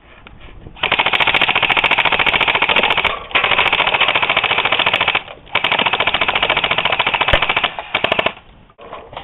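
Airsoft gun firing on full auto: three long bursts of about two seconds each, then a short burst.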